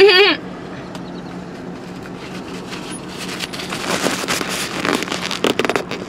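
A short cry right at the start, then rustling and crackling handling noise from about halfway in, over a steady low hum.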